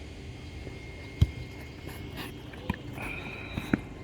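A few sharp thuds of a football being kicked, over steady background noise: one about a second in and a quick pair near the end.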